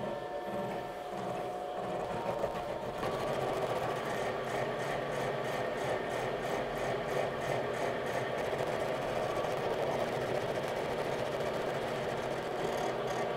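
Steinel SH4 horizontal milling machine running at slow spindle speed, its cutter head milling a 3 mm cut across a round metal bar. About three seconds in, the cut bites and the sound grows louder and rougher, with a fast regular ticking that comes and goes.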